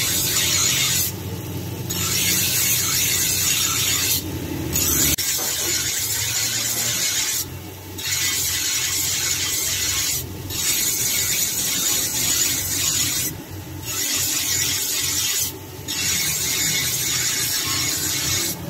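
Bench grinder wheel grinding a steel dagger blade made from an old file: a loud high hiss of steel on the stone, broken by about six short gaps as the blade is lifted off and set back on the wheel, over the low hum of the grinder.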